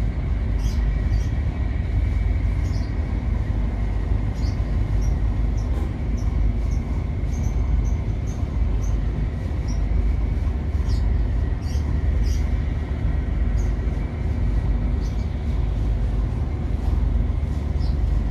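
Steady low rumble of a ship's engines and machinery, with a faint steady whine and scattered light ticks.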